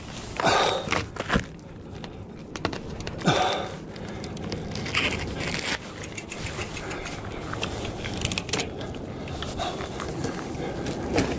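A rider breathing hard, with three loud breaths, the first about half a second in. Scattered clicks and rattles from the mountain bike's rear derailleur and wheel come as it is handled and checked for damage after a crash.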